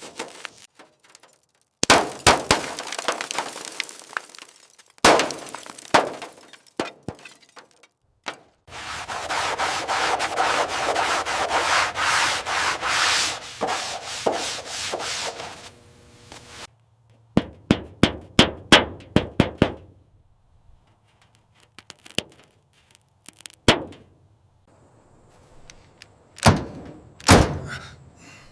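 Hand work with tools: scattered knocks and clicks, a long stretch of steady rubbing or scraping, then a quick run of sharp taps and a few more knocks near the end.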